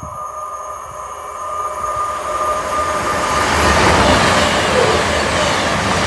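A train passing through the station, its rumble and rail noise growing louder to a peak about four seconds in, with a steady high whine running underneath.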